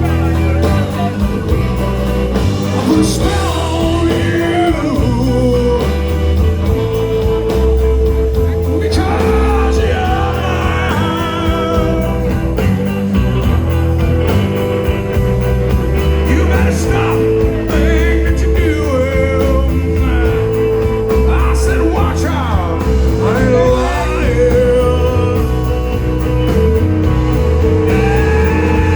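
Rock music with a singing voice, playing steadily throughout.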